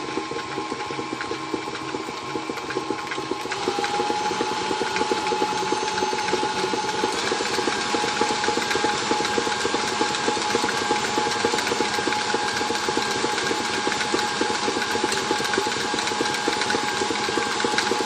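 Electric mixer with a whisk attachment running steadily, whipping butter and powdered sugar into cinnamon butter: a motor hum with a fast rattle of the whisk in the bowl. About three and a half seconds in it gets louder and its tone drops slightly.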